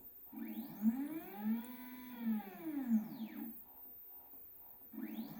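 Stepper motor of an OnStep GoTo friction drive whining as it slews the Dobsonian telescope, its pitch rising as the motor ramps up to speed and falling as it slows to a stop. The second slew starts near the end.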